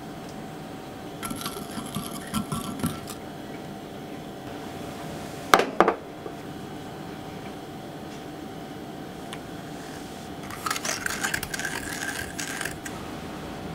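A small plastic spoon stirs and scrapes quickly inside a small ceramic cup near the end, mixing baking soda with water, in a fast run of light clinks. A similar shorter run of clinks comes near the start, and about halfway through there is a single loud knock, the loudest sound.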